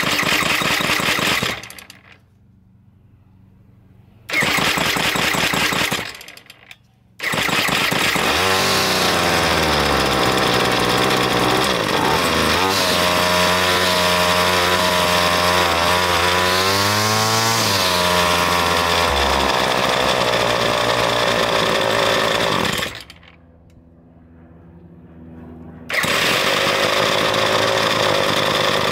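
Ryobi ES30 string trimmer's two-stroke engine revved to full throttle four times, falling back to a quiet idle between revs. The longest rev is held for about fifteen seconds, its pitch wavering up and down partway through. The engine is running on its own fuel after a GumBuster carburetor cleaning, with the idle just adjusted.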